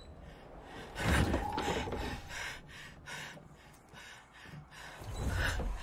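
A man breathing hard and gasping in fright: a sharp gasp about a second in, then quick panting breaths, and another heavy gasp near the end.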